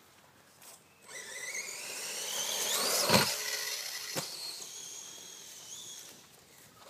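Electric motor whine of a DF-Models Speedfighter 2 RC buggy, rising in pitch as it speeds up and peaking with a sharp knock about three seconds in. A second knock comes about a second later, then the whine levels off and fades.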